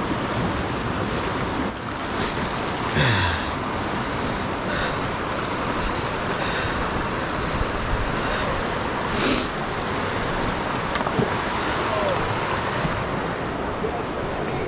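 Wind blowing over the microphone: a steady rushing noise with a few brief louder gusts.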